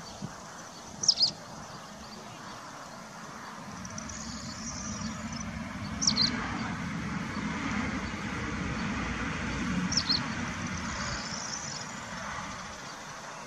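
A bird chirping a short, sharp double note about every four seconds, over a rushing background noise that slowly swells through the middle and fades again.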